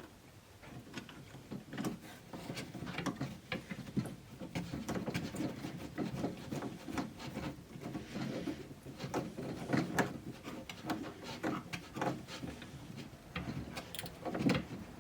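Small parts and hand tools being handled on a pinball playfield during reassembly: irregular light clicks, taps and rattles, with a sharper knock about four seconds in.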